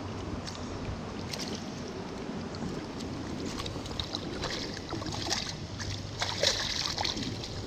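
Shallow stream water washing and sloshing around a pair of waders, with wind buffeting the microphone. Small splashes come more often and louder about four to seven seconds in.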